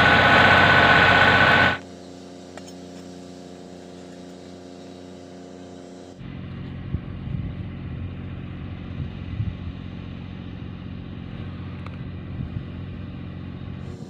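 Electric arc welding crackles loudly for the first couple of seconds, then cuts off. A much quieter steady hum follows, with low rumbles and small knocks in the second half.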